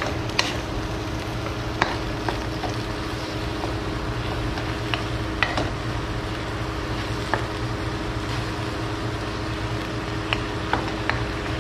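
Wooden spatula stirring chicken in simmering adobo sauce in an aluminium wok: a steady sizzling hiss with a low hum under it, and scattered sharp clicks of the spatula knocking the metal pan, about a dozen in all.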